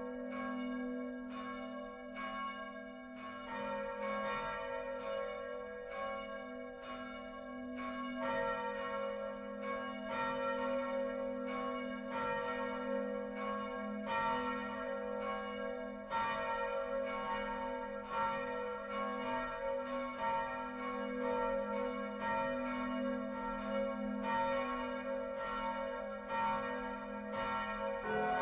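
Peal of large swinging church bells hung on straight yokes in the Utrecht Dom tower, among them bronze bells cast by Geert van Wou in 1505, ringing together in overlapping strokes. New notes join about three and a half and eight seconds in as the full peal is rung up.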